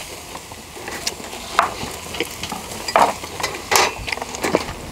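Slices of Korean beef strip loin sizzling on a wire-mesh grill over charcoal. A steady hiss is broken by scattered sharp pops and clicks.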